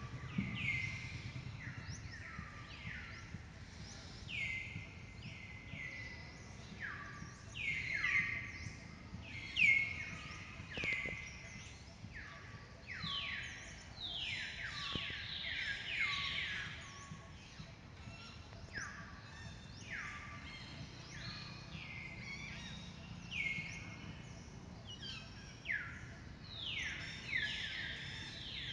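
Birds chirping: many short calls falling in pitch, several a second and overlapping one another, over a steady low background hum.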